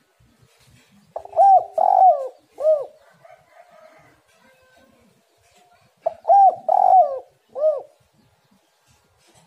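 Spotted dove (tekukur) cooing: two phrases about five seconds apart, each of three arched coo notes.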